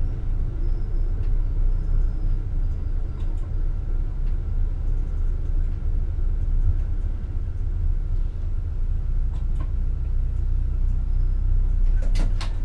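Low, steady rumble of a Class 648 diesel multiple unit, heard from its driver's cab, with a few sharp clicks near the end.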